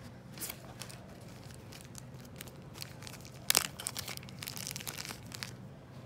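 Close handling noise of a small adhesive sticker (a Rycote Micro Windjammer mounting sticker) being peeled from its backing sheet and pressed onto a camera body. It is crinkling and rubbing, with a sharp tap about three and a half seconds in, the loudest sound, and a run of crackling just after.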